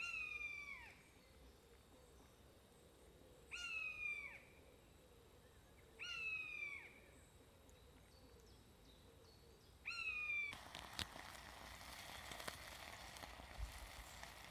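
A high mewing call, four times a few seconds apart, each held briefly and then sliding down at the end. About ten and a half seconds in, the steady hiss of a small gas camping stove burning under a cooking pot takes over.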